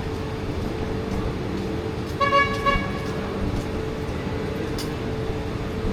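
Steady road-traffic rumble with a car horn sounding two short toots in quick succession about two seconds in.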